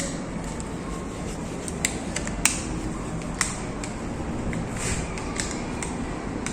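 A few separate sharp clicks and light handling noise over steady background noise, made while the newly wired switch is handled and tested.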